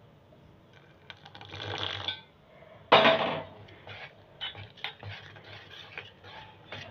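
Water poured into a steel bowl of gram-flour (besan) batter, then a wire whisk beating the batter, with irregular clicks and scrapes of the whisk against the steel bowl.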